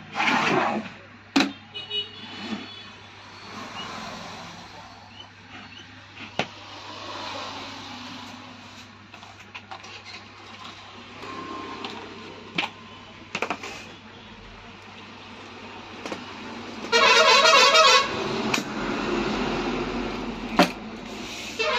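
A vehicle horn honks for about a second near the end and starts again just before it closes. Before that there are scattered clicks and knocks of parts being handled on a tabletop.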